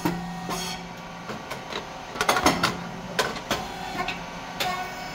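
SYP8002 puffed rice cake machine running its cycle: a series of sharp mechanical clacks and knocks with short hissing bursts, the loudest cluster a little over two seconds in, over a steady low hum.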